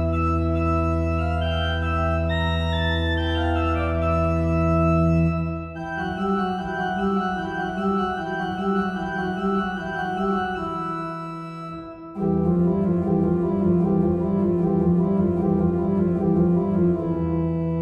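Two-manual electronic organ playing a tune: a held chord over a sustained bass for the first five seconds or so, then a softer passage of repeated chords, coming back in louder about twelve seconds in.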